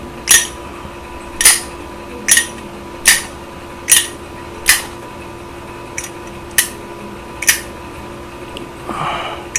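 Zippo lighter's hinged metal lid clinking as it is flicked open and snapped shut, about eight sharp metallic clicks at roughly one a second.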